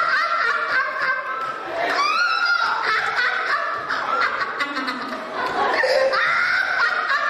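Human laughter mixed with talking voices.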